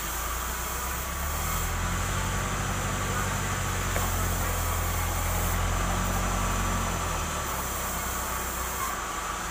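Sawmill band saw running steadily, with a heavier low rumble from about two seconds in until about seven seconds.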